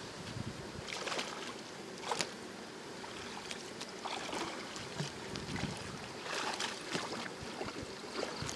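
Water splashing and sloshing with scattered small sharp knocks, over a steady hiss of wind.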